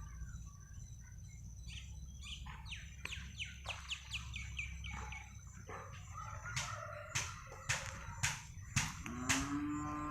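Birds chirping in a quick run of falling notes, then several sharp loud calls. Near the end a cow starts a long, deep moo.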